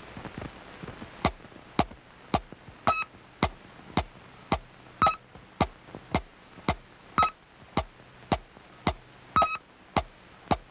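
Electronic ticking sound effect, about two sharp ticks a second, with every fourth tick a short high beep, over the hiss of an old film soundtrack.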